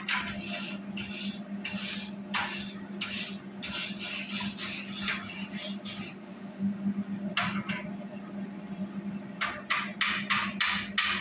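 Slag being cleaned off flux-core weld beads on a steel table with hand tools: a run of scraping strokes, then quick, even chipping-hammer taps about three a second from about nine seconds in. A steady low hum runs underneath.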